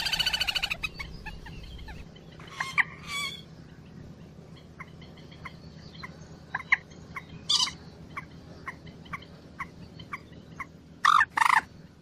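Common moorhen calling: a fast rattling series at the start, then short sharp notes about once a second and a few louder calls, the loudest two near the end.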